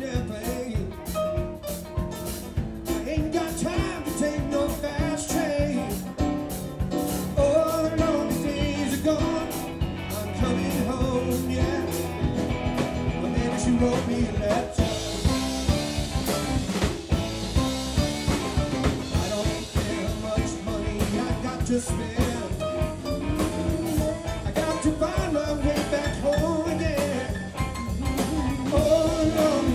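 Live band playing a song: vocals over electric guitar, bass guitar, keyboard and a drum kit keeping a steady beat.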